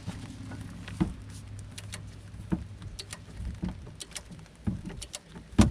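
Hand tools working on a car's rear brake hardware: irregular metallic clicks and knocks, with one loud knock near the end, over a low steady hum.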